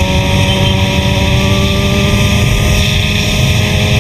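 Suzuki GSX-R1000's inline-four engine pulling steadily at high revs, its pitch slowly rising as the bike gains speed, under heavy wind rush on the microphone.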